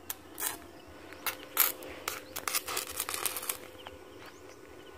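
Stick welder arc crackling and sizzling in short, irregular bursts as tack welds are struck on a steel-pipe gate frame. The bursts come in a cluster over the first three and a half seconds, then stop.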